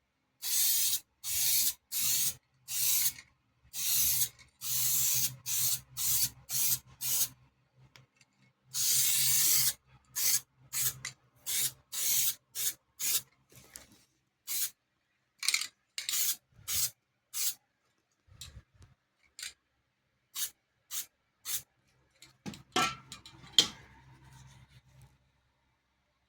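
Repeated hand rubbing strokes over a car's painted panel: slow, even strokes about one a second, then shorter, quicker ones. A few knocks come near the end.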